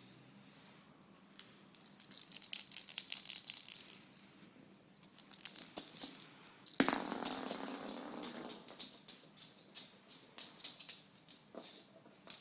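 A small bell toy jingling and rattling in two bursts, with a steady high ring under the jingle, and one sharp knock about seven seconds in.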